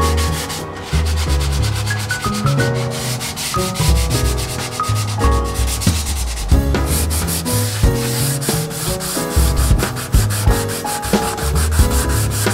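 Hand sanding of a wood-grain cabinet panel with a sanding pad: quick back-and-forth rubbing strokes. Background music with a bass line and melody plays over it.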